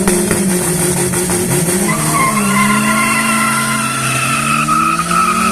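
Turbocharged drag cars racing at full throttle: engine pitch holds high, drops at a gear change about two seconds in, then climbs again while a high whine joins.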